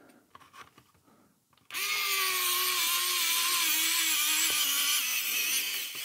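Wowstick pen-style electric precision screwdriver running as it drives a small screw. The motor whine starts about two seconds in, its pitch dropping slightly, and stops about a second before the end.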